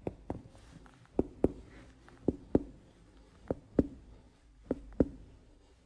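A doctor's fingers percussing a patient's abdomen: five pairs of sharp taps, the two taps of each pair about a quarter second apart, repeating about every 1.2 seconds.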